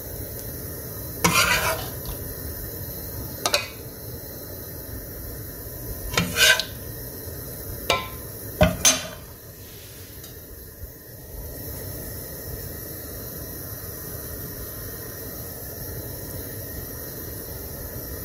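Serving spoon knocking and scraping against an enamel pot as chicken curry and potatoes are spooned over rice: about five sharp clinks in the first nine seconds, then only a steady low hiss.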